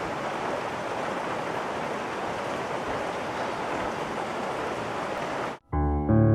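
Steady rain, an even hiss that cuts off suddenly about five and a half seconds in. Piano music begins just after.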